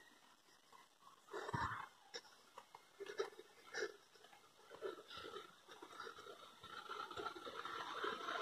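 A person's breath close to a phone's microphone, faint irregular puffs about every half second to a second, the strongest about a second and a half in. A steady noise grows louder near the end.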